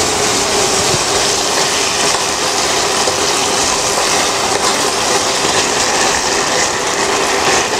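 Salmon pieces sizzling steadily in hot oil in a frying pan, with oyster sauce just poured in, while a metal spoon stirs and scrapes through them.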